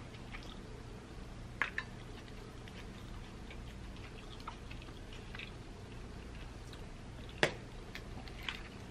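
Faint ticks and crackles from a piece of crispy fried chicken and a plastic squeeze bottle being handled, with two small clicks about a second and a half in. A single sharper knock comes about seven seconds in, as the squeeze bottle is set down on the tray.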